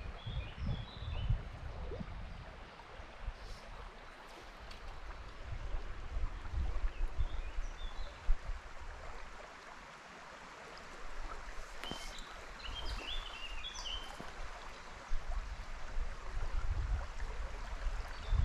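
River water running steadily, with low gusts of wind buffeting the microphone. A small bird chirps briefly a few times, most in a short burst about two-thirds of the way through.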